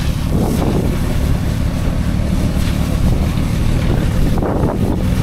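Off-road vehicle engines idling with a steady low drone, with wind noise on the microphone.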